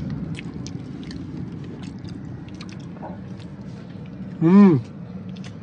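Chewing and small clicks of hands picking food out of a lunch container, over the steady hum of a moving car's cabin. One brief voiced sound comes about four and a half seconds in.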